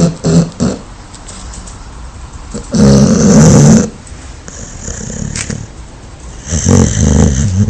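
A sleeping dog snoring: two loud snores about four seconds apart, each lasting about a second, with a softer breath between them.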